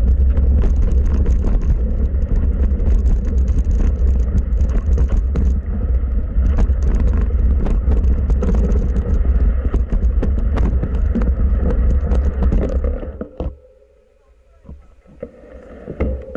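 Mountain bike riding down a rough forest dirt trail, heard from the rider's own camera: a heavy wind rumble on the microphone with frequent sharp clicks and rattles from the bike over the bumps. About three seconds before the end the noise falls away suddenly as the bike stops, leaving a few faint knocks.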